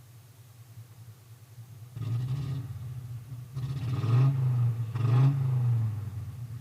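Car engine idling, then revved three times, each rev swelling and falling back over about a second.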